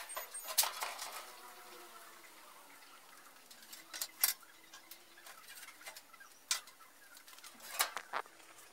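Scattered sharp metallic clicks and knocks as a pizza on its metal screen is pulled off the oven's stone deck: one near the start, a pair around four seconds in, one a little later and two close together near the end.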